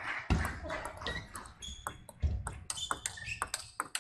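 Table tennis rally: the celluloid-type ball is knocked back and forth in quick, irregular clicks off rubber bats and the table. Two dull thumps come in among the strikes, about a third of a second in and just past halfway.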